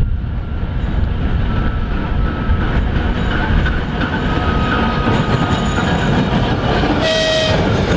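Train rolling along the track: a loud, steady rumble of wheels on rails with faint high wheel squeal. About seven seconds in comes a short, sharp squeal.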